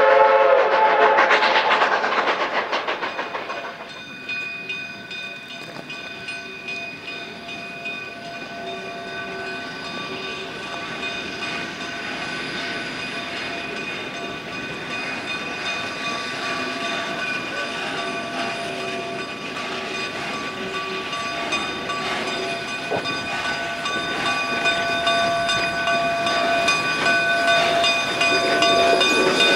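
Narrow-gauge K-36 steam locomotive 487: its steam whistle chord ends about a second in and dies away in a long echo. Then the approaching train runs along the track, growing gradually louder, with several steady high ringing tones over it.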